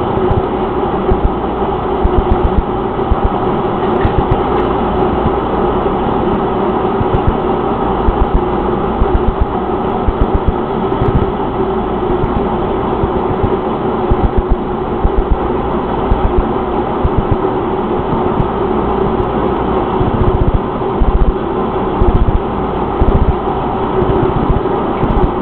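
Metal lathe running steadily while machining an aluminum handlebar: a constant mechanical hum with a steady tone, broken by frequent irregular low thumps.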